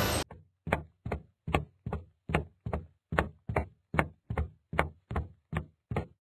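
Cartoon footstep sound effects: a dozen or so short, knocking steps, evenly spaced at about two and a half a second, stopping shortly before the end.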